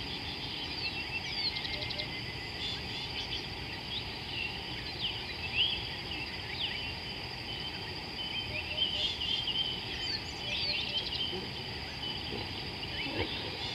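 Several birds calling and chirping over one another, with short whistles and trills, over a steady high-pitched buzz.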